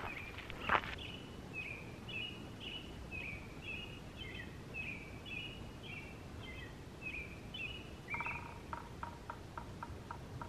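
A bird calling with short, high chirps about twice a second, then near the end a run of lower clicking notes that slow down. A single thump comes about a second in, over faint outdoor background noise.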